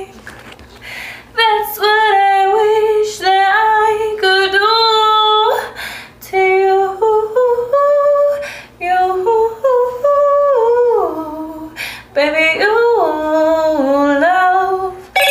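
A woman singing unaccompanied: wordless vocal runs, notes sliding up and down and held between them, in short phrases with brief gaps.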